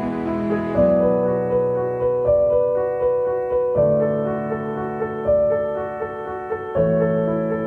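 Background music: slow piano-like keyboard chords, changing about every second and a half.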